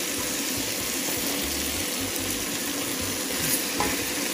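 Prawn shells and vegetable trimmings frying in oil in a stainless steel stockpot: a steady sizzle with crackling. A wooden spoon knocks once against the pot near the end as the vegetables are stirred.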